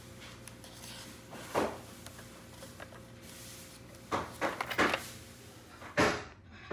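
Scattered knocks and clatters of objects being handled, like a drawer or cupboard, over a faint steady hum. There is one knock about a second and a half in, a quick run of several knocks between four and five seconds, and another sharp knock near the end.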